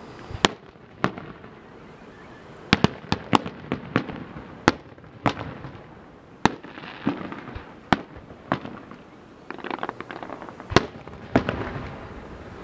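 Aerial fireworks shells bursting: a string of sharp bangs at irregular intervals, with stretches of crackling from glittering stars in the middle and near the end.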